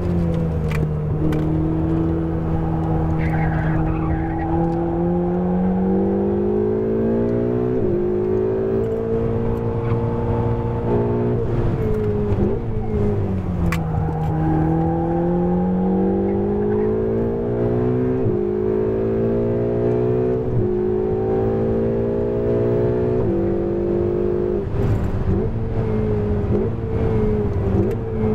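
Ferrari 488 GTB's twin-turbo V8 driven hard on a track, its pitch climbing through long pulls with upshifts, then dropping as the car brakes and downshifts for corners, about halfway through and again near the end.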